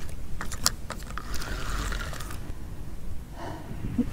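Fishing reel being handled while the line goes back in: a few sharp clicks in the first second, then a soft whirr lasting about a second, over a low rumble.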